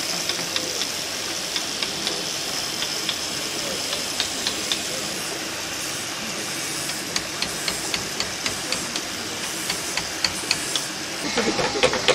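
Sharp taps of a mallet on a wood-carving chisel, about two a second, growing louder near the end, over a steady high hiss.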